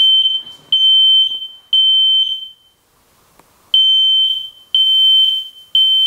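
Smoke and carbon monoxide alarm going off in smoke-alarm mode, triggered by test smoke from a fog machine. It gives loud, high-pitched beeps in the temporal-three pattern: three beeps about a second apart, a pause of about a second, then three more. Each beep trails off in a short echo.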